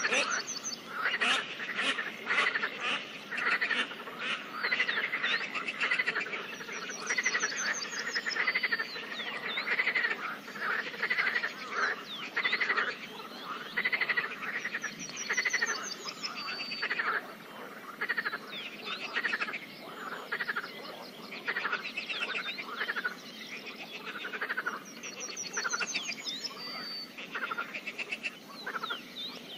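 Chorus of many frogs croaking at a pond, their pulsed calls overlapping continuously. A high, quick trill from another animal recurs about every eight seconds above the chorus.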